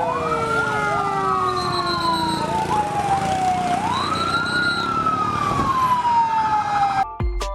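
Emergency-vehicle siren wailing. The pitch sweeps up quickly and slides slowly down, twice, with overlapping echoing tones, then cuts off suddenly near the end.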